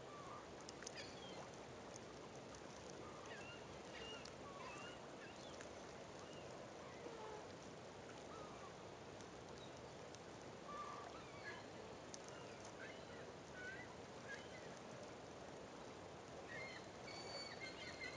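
Scattered short calls of distant birds, several of them bunched together near the end, over a faint steady hiss.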